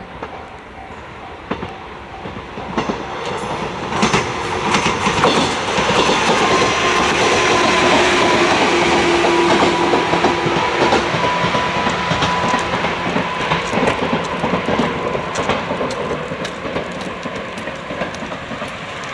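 Two-car electric train passing on the rails, wheels clicking over the rail joints; it grows louder over the first few seconds and slowly fades toward the end.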